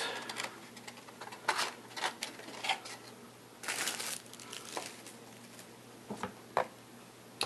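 Clear plastic shrink wrap crinkling as it is handled and pulled off sealed trading-card boxes: short rustles, with a longer crinkle about halfway through, among light taps of the boxes being handled.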